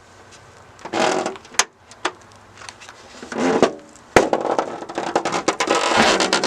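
Volkswagen Beetle rear fender being yanked off its mounts by hand, with two bolts still holding. Scattered metal clanks and scrapes lead to a sharp bang about four seconds in, followed by a busy stretch of rattling and clatter.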